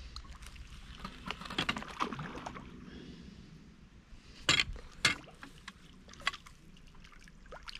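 A hooked common carp splashing at the surface as it is played in and netted. There are scattered small splashes early on, then two sharp, loud splashes close together a little past halfway, and a smaller one after.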